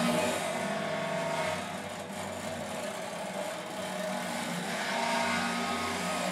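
Amplified guitar strings worked by hand with extended techniques, giving a continuous noisy drone with faint held pitches that swells at the start.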